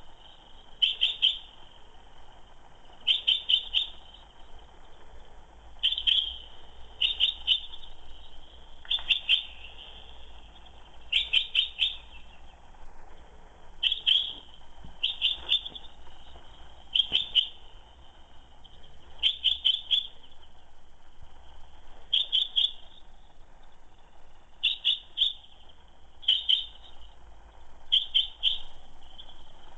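Female common chaffinch calling: short, sharp notes in clusters of two to four, repeated every second or two.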